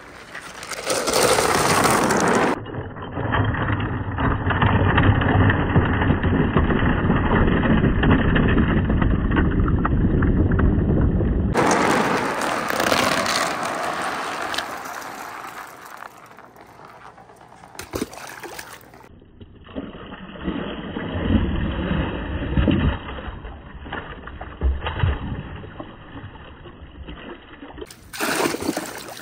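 Water rushing down a wooden marble-run chute and splashing into a plastic tub, with glass marbles rolling and clicking against each other and the board.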